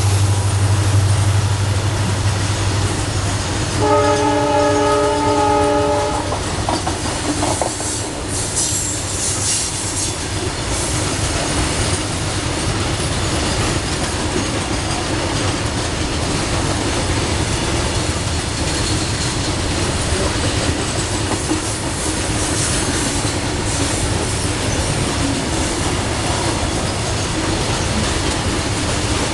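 EMD WDG4 (GT46MAC) diesel-electric freight locomotive passing: a low engine drone for the first few seconds, then its multi-tone horn sounding one steady chord for about two seconds, about four seconds in. After that the long BCNA covered-wagon rake rolls by, its wheels clattering steadily on the rails.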